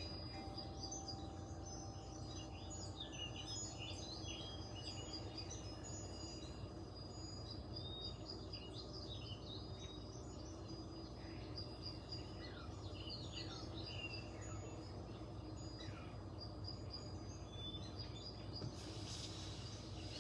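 Faint room tone with a low steady hum, with small birds chirping and twittering faintly in the background. A brief hiss comes near the end.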